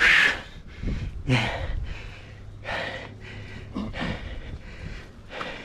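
A person's short, breathy gasps and sighs, about five of them spread through, the loudest right at the start.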